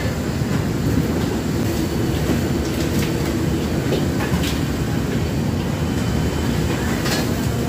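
Commercial Chinese wok range running: the gas burner under the wok and the extraction hood make a steady low rumble, with a few sharp clinks of a metal ladle against the steel wok.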